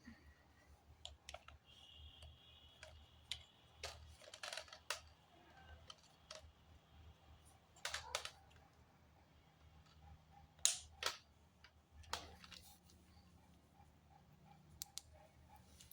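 Irregular clicks and light knocks of objects being handled, the loudest a few seconds apart about eight and eleven seconds in, over a faint steady hum.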